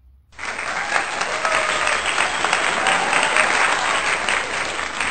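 Crowd applauding, many hands clapping at once, starting suddenly about a third of a second in.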